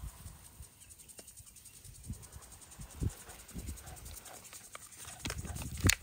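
Hands patting and pressing potting soil around plants in a galvanized metal bucket: scattered soft taps and rustles. A sharper knock near the end comes as a black plastic nursery pot is handled.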